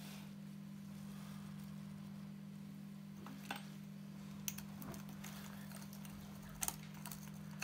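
A few light, sharp clicks, a quick double one about two-thirds of the way through, as a plastic spacer ring is handled and pushed down over a bike hub's axle onto the sprockets. A steady low hum runs underneath.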